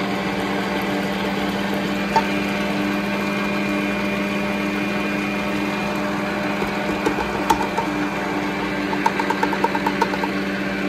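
Electric mixer motor running steadily, mixing flour into a milk, yeast and egg dough for cinnamon rolls, with a few light clicks in the second half.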